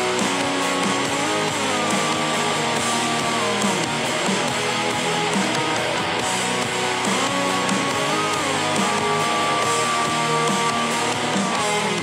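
Background music: a guitar-led rock song with no spoken words.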